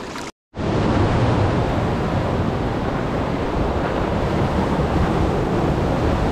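Sea surf breaking on a rocky shore, a steady rush mixed with wind buffeting the microphone; it cuts in suddenly after a brief silence near the start.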